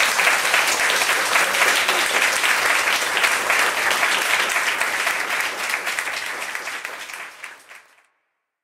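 Audience applauding after a song, a dense steady clapping that fades out and ends near the end.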